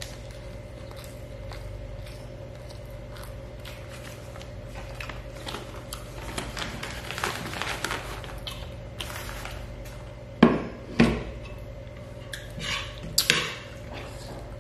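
Paper food wrapping rustling and crinkling as it is gathered up and moved aside, then a metal spoon striking a ceramic plate: two sharp clinks a little after halfway and a double clink near the end.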